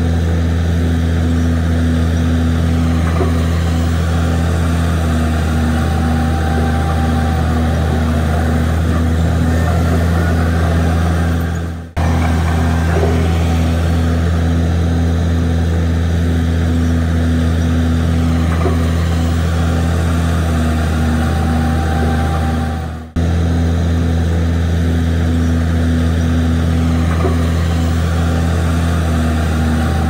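Bulldozer diesel engine running steadily with a deep hum and an even pulsing beat. The same stretch repeats: it fades out and starts again abruptly twice.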